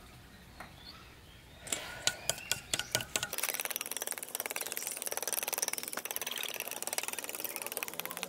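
A metal spoon clinks against a stainless steel bowl several times. A louder, fast, buzzing rattle then starts abruptly and carries on.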